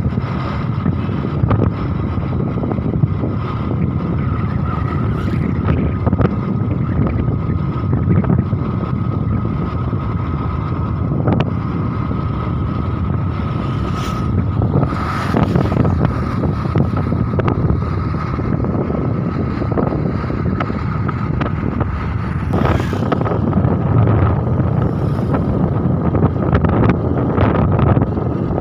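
Wind buffeting the microphone over the steady rumble of a vehicle travelling along a road, with a thin steady whine throughout and a few brief louder swishes.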